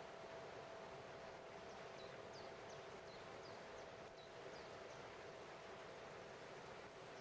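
Faint steady rush of a waterfall's water over stepped rocks, with a faint held ringing tone from a crystal harp. In the middle come several quick, high, falling bird chirps.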